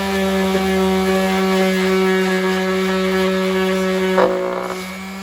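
Electric palm sander running at a steady high-speed hum. About four seconds in there is a short ripping noise, the untrimmed sandpaper tearing on the pad, and the sander then runs on more quietly.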